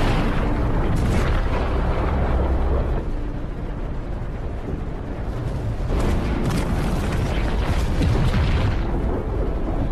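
Film sound effects of a run of heavy explosions with a deep rumble. Fresh blasts hit at the start, about a second in, and again from about six seconds in, over the film's music score.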